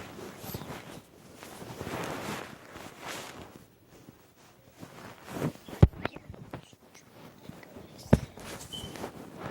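Rustling and handling noise from the camera being repositioned, with two sharp knocks, one about six seconds in and another about two seconds later, like something set down on a table.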